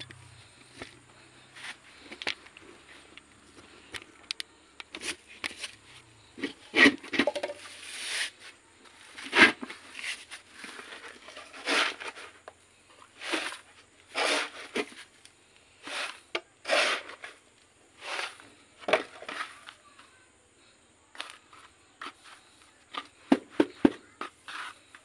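Dry potting medium being scooped with a cut-off plastic bottle and poured into a plastic tub: about ten separate rustling pours, one every one to two seconds, then a few quick light taps near the end.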